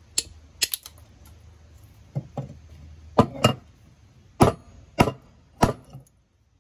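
Hammer blows on a small anvil, knocking brittle slag off a cast-iron casting: about ten sharp strikes, light and uneven at first, then heavier blows roughly every half-second to second.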